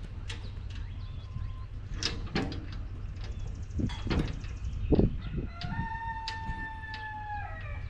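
A rooster crows once: one long, held call in the second half, dipping at the end. Scattered short chicken calls come before it.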